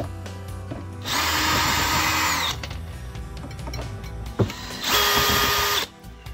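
Cordless drill-driver whirring in two short runs, about a second and a half and then about a second, backing out the screws of a studio monitor's rear amplifier panel.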